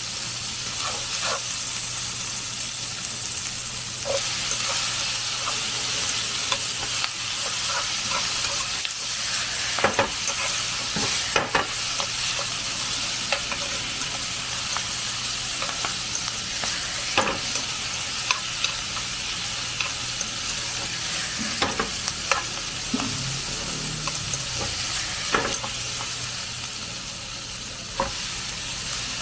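Beef cubes, onion and cabbage sizzling in a nonstick frying pan over a gas burner, with tongs clicking against the pan now and then as the food is stirred. The sizzle grows louder about four seconds in.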